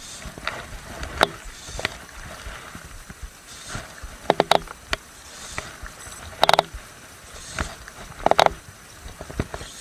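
A handful of sharp knocks a few seconds apart, some doubled, each with a short hollow ring, over a faint steady hiss.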